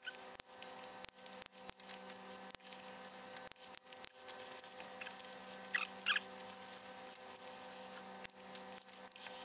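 Ratchet of a click-type torque wrench ticking in short runs as the rod cap bolts on a Continental Z129 crankshaft are tightened to about 43 ft-lb, with two sharper metallic clicks near the middle. A steady low hum runs underneath.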